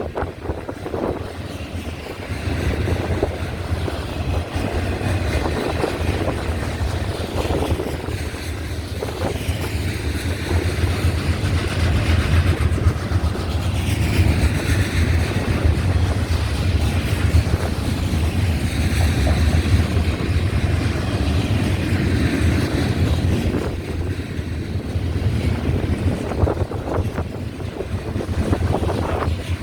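Freight train rolling past, a steady low rumble, with wind buffeting the microphone.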